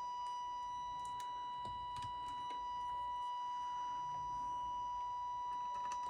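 EICO 150 signal tracer's speaker playing a steady 1 kHz test tone with distortion, with a few faint clicks along the way. The distortion and low volume are the sign that one of its transistor amplifier stages isn't amplifying correctly.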